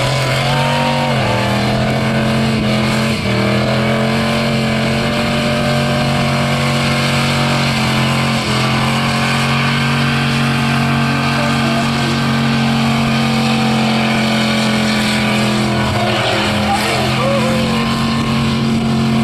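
V8-powered Toyota Corolla doing a burnout: the engine is held at steady high revs while the rear tyres spin and smoke. The revs dip briefly about three seconds in and again near the end.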